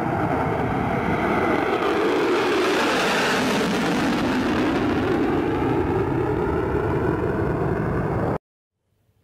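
Fighter jet flying past on afterburner: a loud jet roar that grows brightest about three seconds in and then eases off, cutting off suddenly near the end.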